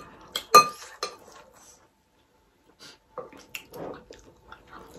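Metal spoons clinking and scraping against glass bowls: a few sharp clinks in the first second, a short pause, then lighter scattered taps.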